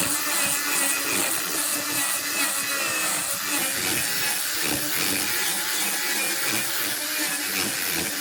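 A power tool running steadily, a continuous hiss with a faint steady whine.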